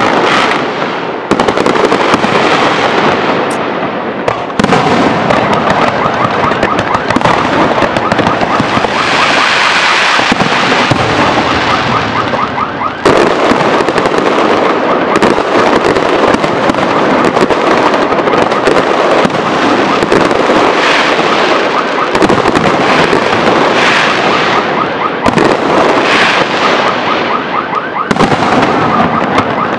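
Fireworks display: a dense, continuous barrage of aerial shells bursting and crackling, with several sudden loud bangs standing out, the first about a second in.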